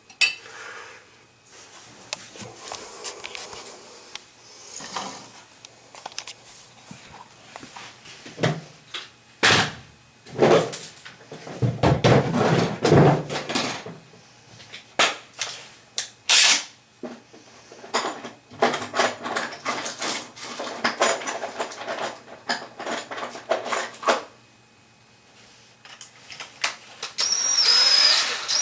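Irregular clinks, knocks and rattles of tools and metal parts being handled, then near the end a power drill starts running with a steady whine.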